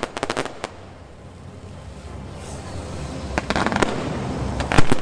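Fireworks going off: three quick clusters of sharp bangs and crackles, the loudest near the end.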